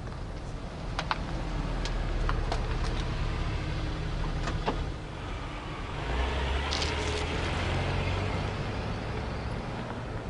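Car engines running at low speed as cars drive off, with several sharp clicks in the first five seconds. About six seconds in a car passes close, its engine hum and a broad hiss swelling and then fading.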